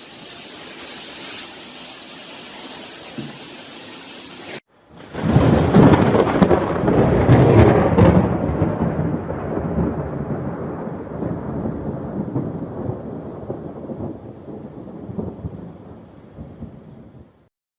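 A steady rushing hiss, then after an abrupt cut a loud, long rolling peal of thunder that peaks within a few seconds and rumbles away over about ten seconds.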